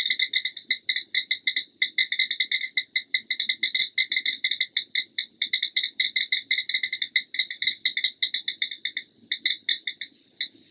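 Smartphone keyboard clicks from rapid typing: a fast, even run of short high ticks at one pitch, thinning out and stopping near the end.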